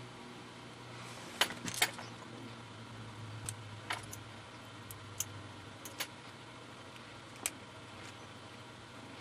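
Small sharp clicks and taps of a tool and the tiny plastic and metal parts of a pill-camera capsule as it is pried apart by hand. About ten irregular clicks, the loudest pair about a second and a half in.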